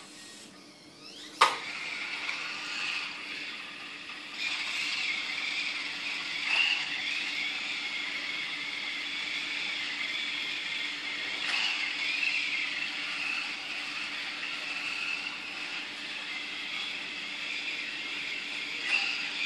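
Small wheeled robot's electric drive motors whining as it drives along, the whine wavering in pitch and growing louder about four seconds in. There is a single sharp click about a second and a half in.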